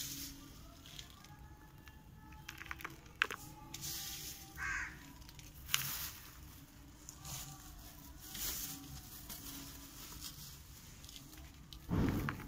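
Loose dry soil being scooped and sprinkled by hand into a plastic bucket over planted seed potatoes. It comes as several soft, short pours, with a louder spill of soil near the end.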